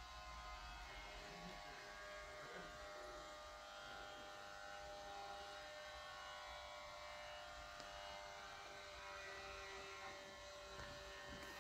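A faint, steady hum made of several held tones, without a break.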